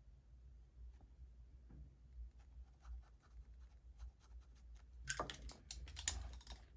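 Light scraping and rubbing on leather, loudest for about a second near the end, with faint ticks and taps before it.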